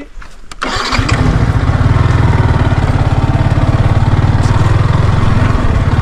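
Sport motorcycle engine starting about a second in, then running steadily with an even low pulse.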